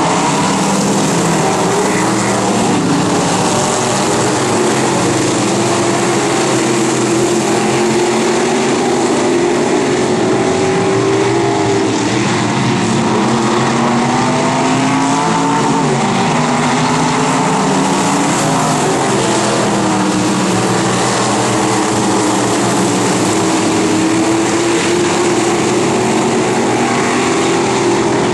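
A pack of dirt-track Sportmod race cars' V8 engines running at racing speed, several engine notes overlapping, each rising and falling in pitch as the cars go around the oval.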